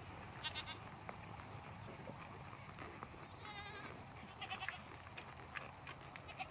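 Sheep in a moving flock bleating: a couple of short bleats about half a second in, a longer quavering bleat about three and a half seconds in, and a few more just after.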